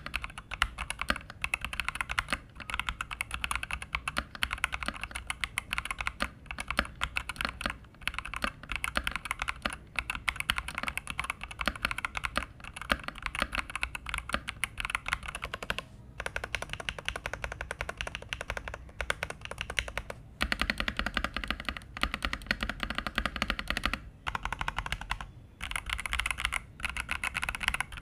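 Fast typing on a Zifriend ZA68 60% mechanical keyboard with its stock switches: a dense, steady run of keystroke clicks, broken by brief pauses every few seconds.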